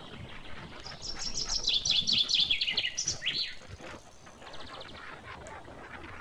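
A bird singing: a quick run of chirps falling in pitch, starting about a second in and lasting about two seconds, with a shorter falling note after it.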